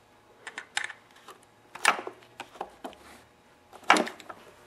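Scattered sharp clicks and knocks of metal pliers and hard plastic parts being handled while a rubber fuel line is pushed onto the carburetor's brass fuel fitting, the loudest about two seconds in and again near the end.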